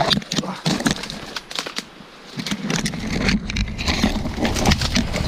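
Dry brush and thorny twigs crackling, snapping and scraping against clothing and the camera as someone pushes through thorn bushes on foot. A low rumble joins about halfway through.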